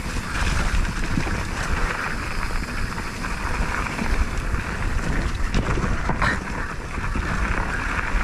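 Wind buffeting the microphone over the steady rumble of a vehicle on the move, with a brief clatter about six seconds in.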